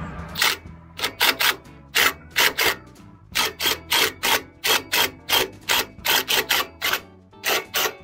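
Cordless impact wrench on the centre bolt of a sawmill's engine clutch, fired in about two dozen short, sharp bursts at roughly three a second with brief gaps between them.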